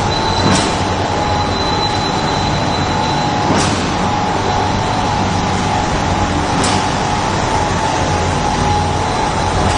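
Candy-bar forming and packaging line machinery running: a loud, steady mechanical noise with a constant hum, and a sharp click about every three seconds from the machine's cycle.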